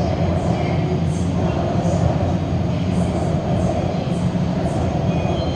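Shenzhen Metro Line 6 train running past the platform behind the screen doors: a steady, loud rumble of wheels and running gear.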